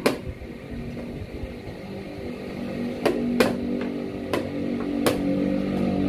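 Blitz chess play: sharp clicks of a digital chess clock's buttons being hit and wooden chess pieces set down on the board, one right at the start and a quick run of four or five between about three and five seconds in. Under them, a steady engine-like drone that grows slightly louder.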